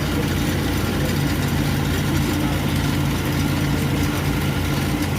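Alternator test bench running steadily, spinning a freshly repaired 12-volt, 120-ampere Bosch alternator with its repaired pulley for a charging test. The bench gives a steady, even hum.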